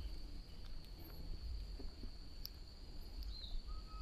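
Rural ambience: an insect's steady high-pitched drone, with a few brief bird chirps and a low rumble underneath.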